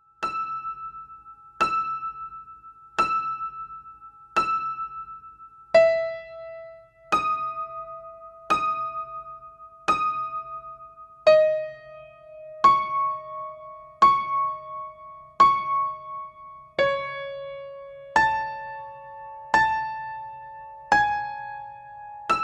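Slow background music on a piano-like keyboard. A note or chord is struck about every second and a half and left to ring out, and the held pitch steps gradually lower across the passage.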